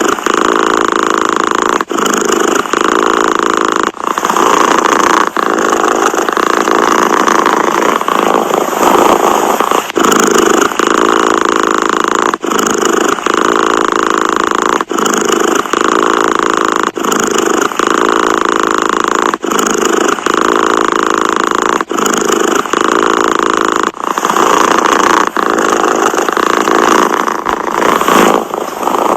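Domestic cat purring, loud and steady, with a short break every two seconds or so.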